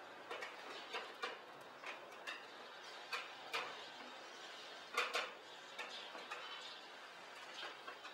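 Scattered light clicks and taps at uneven intervals, about fifteen in all, the loudest pair about five seconds in, over a low steady hiss.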